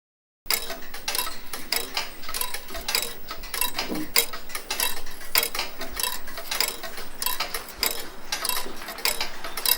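Clockwork ticking, starting about half a second in: a fast, dense run of sharp metallic ticks, several a second, uneven in strength.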